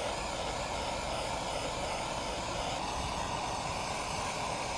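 Handheld gas torch burning steadily, its flame held on heat-shrink tubing to seal a wire splice.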